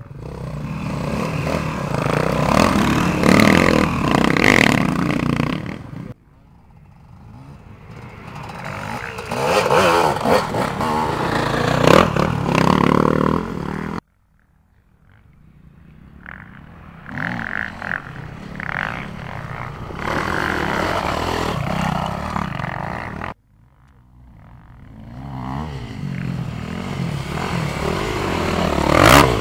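Off-road dirt bike engines revving as riders come past, in four short clips cut together. Each clip starts quiet and grows louder as the bikes near, with the engine pitch rising and falling through the throttle changes.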